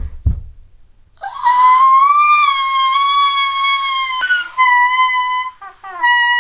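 Music: a slow melody of long held high notes on a wind-like instrument, starting about a second in, with a few quick lower notes near the end.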